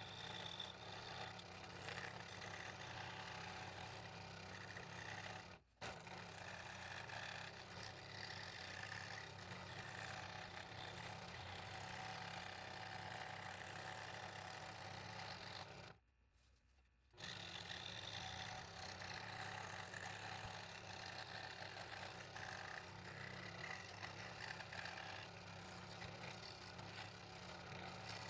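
Scroll saw running and cutting wood: a steady motor hum with the blade's scraping buzz. The sound cuts out briefly about six seconds in and again for about a second around sixteen seconds in.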